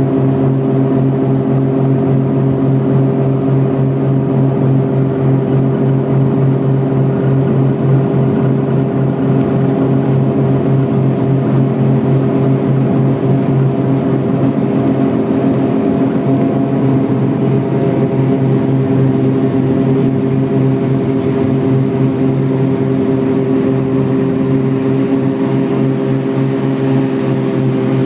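Single-engine propeller aircraft's engine and propeller at full takeoff power, heard from inside the cockpit: a steady, even drone through the takeoff roll, lifting off near the end.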